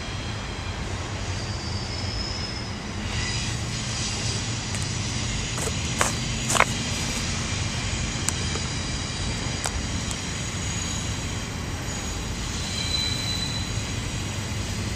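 CSX double-stack container train rolling past at a distance: a steady rumble of wheels on rail with a few faint high-pitched squeals. Two sharp clanks about six seconds in stand out as the loudest sounds.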